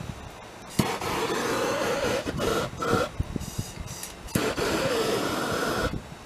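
Small handheld electric power-tool motor switched on in about four short runs, each a second or so, with brief breaks between them and a whine that wavers in pitch.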